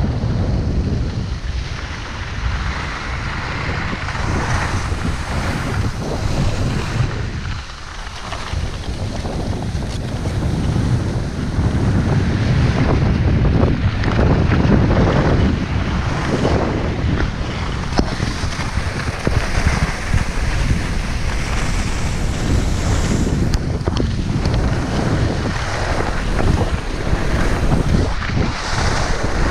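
Wind buffeting an action camera's microphone while skiing downhill, mixed with skis hissing and scraping over packed snow. The noise rises and falls throughout.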